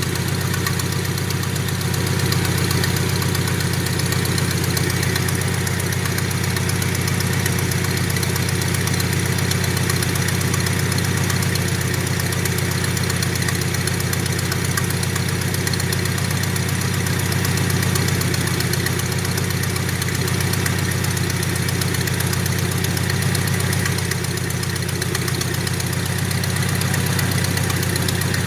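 Nissan 720 pickup engine idling steadily, still warming up after a cold start.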